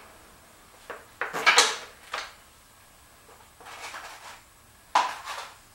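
A run of irregular knocks and clatters of parts and tools being handled, loudest at about a second and a half in, with another sharp knock near the end.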